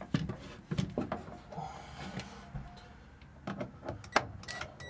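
Cordless Ryobi drill-driver driving a screw into a wooden cabinet divider in short bursts, among irregular sharp knocks and clicks of the tool against the wood.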